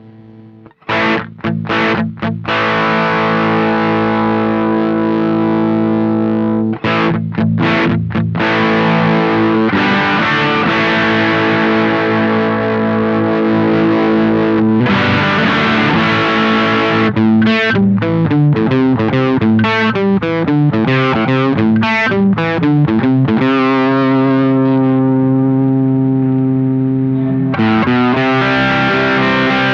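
Electric guitar played through a Velouria FX Witchcraft distortion/preamp pedal. A few short distorted chord stabs come about a second in, then long ringing chords, with a faster run of changing notes in the middle and a brief break near the end.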